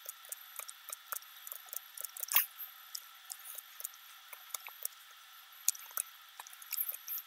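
Computer mouse and keyboard clicks during editing, short irregular ticks several times a second, one a little louder about two and a half seconds in, over a faint steady hiss.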